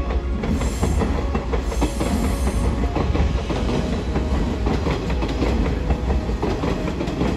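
Electric commuter train running past on the line below, its wheels clacking over the rail joints in a steady, dense stream of clicks over a continuous low rumble.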